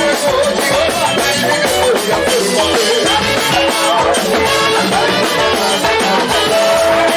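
Live band playing an instrumental passage: a drum kit keeps a steady beat under a wavering lead melody line, with no singing.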